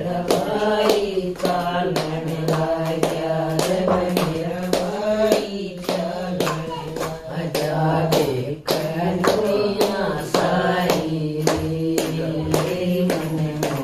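A group of women singing a Haryanvi bhajan together, keeping time with hand claps at about two a second.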